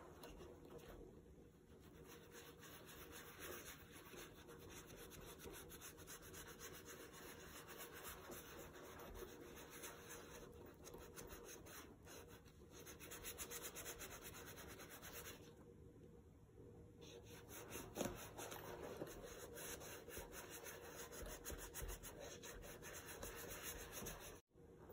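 Gloved hands rubbing cream conditioner into the smooth leather of a vintage Coach Carnival crossbody bag. It is a faint, continuous soft rubbing with a few brief pauses.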